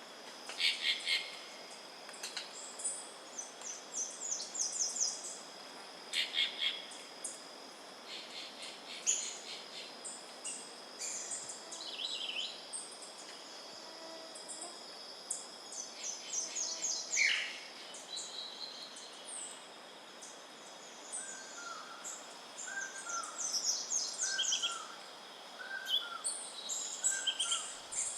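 Several wild birds calling and singing over a steady high insect drone: scattered high chirps and trills, one falling whistle about two-thirds of the way through, then a run of short, lower whistled notes repeating about once a second near the end.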